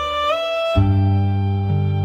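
Guqin music: a held note slides in pitch and steps up, then about three quarters of a second in a new low note sounds and sustains, with another plucked note near the end.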